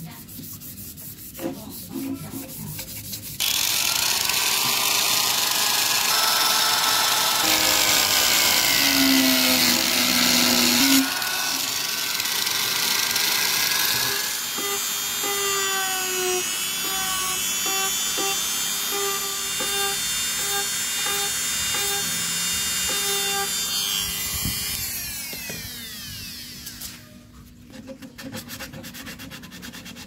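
Handheld rotary tool with a sanding drum running at high speed and grinding the edge of a PVC sheet and pipe, its motor whine sliding up and down in pitch as the drum bites. It starts a few seconds in and winds down a few seconds before the end, with the softer rasp of hand sanding with sandpaper on either side.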